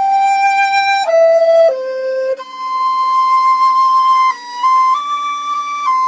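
Instrumental music: a flute plays a slow, plain melody of long steady notes, one lasting about two seconds in the middle, over a faint low drone.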